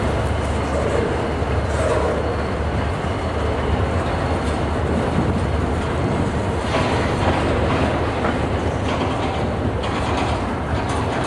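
Double-stack intermodal freight cars rolling past close by: a steady rumble of steel wheels on rail, with clicking as the wheels cross rail joints.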